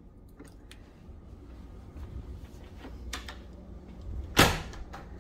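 Hotel room door worked open by its metal lever handle, with a few faint latch clicks, low handling and footstep noise, then one loud sharp thud about four seconds in as the heavy door shuts.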